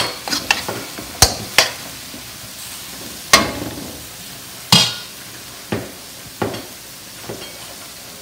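Metal spatula scraping and knocking against a stainless steel wok while sliced beef and onions sizzle steadily. A quick run of sharp scrapes comes in the first two seconds, then single strikes about a second apart that grow fainter.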